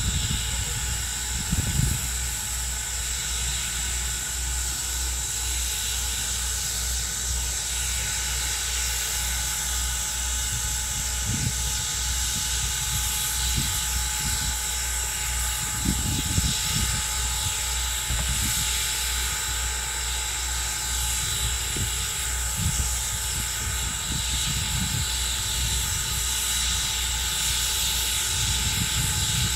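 Norfolk & Western 475, a 4-8-0 steam locomotive, standing with steam up: a steady hiss with a high whine over it and a low rumble beneath, broken by a few soft low thumps.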